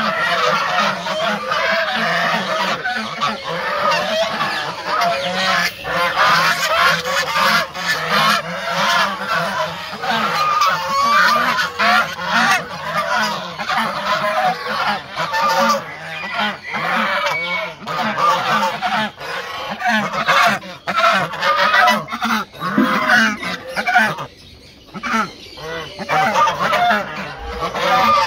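A flock of white domestic geese honking, many calls overlapping with no pause, with a brief lull about three quarters of the way through.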